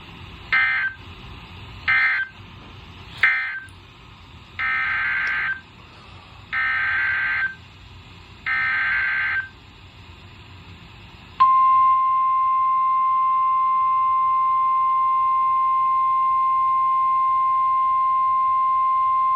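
Emergency Alert System tones from a NOAA Weather Radio broadcast: three short bursts of warbling data noise that close the previous message, then three longer one-second data bursts that open the next alert. About eleven seconds in comes the steady, single-pitch weather radio warning alarm tone, which announces a new warning.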